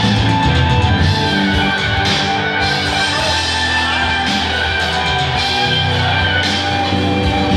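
Live instrumental rock music: an electric guitar played over a drum kit, with held low notes underneath.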